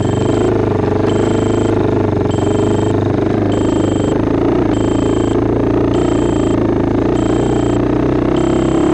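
Four-wheeler (ATV) engine running steadily while it is ridden, with short high electronic beeps about every 1.2 seconds from the model plane's low-battery alarm, a buzzer that now beeps instead of buzzing.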